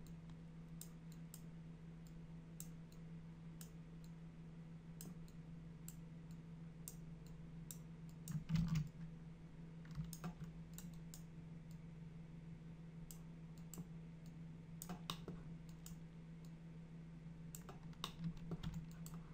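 Faint, irregular clicks of a computer mouse and keyboard while editing on screen, over a steady low hum. A louder low bump comes about eight and a half seconds in.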